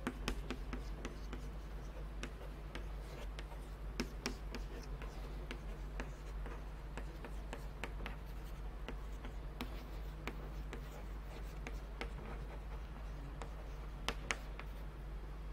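Chalk writing on a blackboard: a run of quick taps and short scratches as words are written out stroke by stroke.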